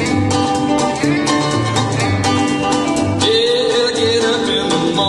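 Band music with a steady drum beat, bass and electric guitar. A long, wavering held note comes in a little past three seconds in.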